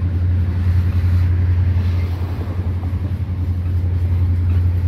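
Freight train's cars rolling past on the rails: a steady, low rumble that does not change.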